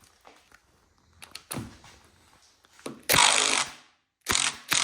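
Cordless DeWalt drill-driver run in short, rattling bursts on old door-hinge screws: a burst about three seconds in and another just past four seconds, with light clicks and knocks before them.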